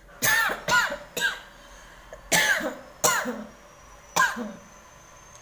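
A woman coughing six times, a quick run of three and then three more spaced out, set off by black pepper powder that has gone into her mouth.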